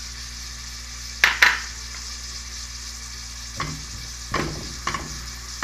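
Diced onion and ground garlic sizzling in hot oil in a metal pot. Two sharp knocks come a little over a second in; from past halfway a spatula stirs, scraping the pot in short strokes about every half second.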